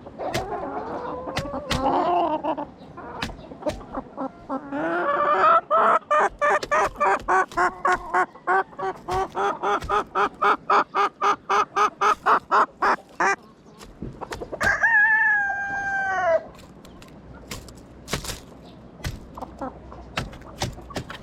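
Chickens calling: a fast, even run of clucks, about four or five a second for some eight seconds, then a rooster crows once, a call of about two seconds that drops in pitch at the end.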